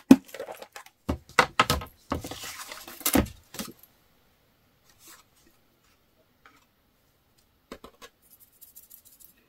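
Small plastic clicks and knocks as an embossing-powder container and a card are handled over a plastic powder tray, with a short rustle about two seconds in. A few seconds of near quiet follow, then faint ticks and a light rustle near the end as white embossing powder is worked over the card.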